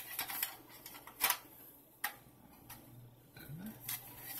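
Hard plastic drone body shell clicking and tapping as it is turned over in the hands: a few scattered sharp clicks, the loudest just over a second in.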